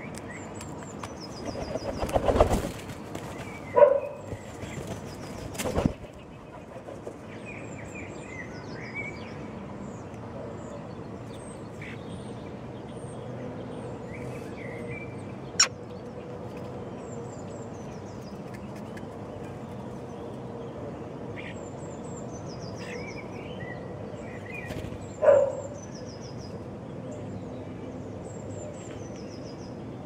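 A short flurry of bird wingbeats about two seconds in, at a windowsill feeder where a starling and a wood pigeon are eating. Faint high chirps from small songbirds run throughout, with a few sharp taps scattered through.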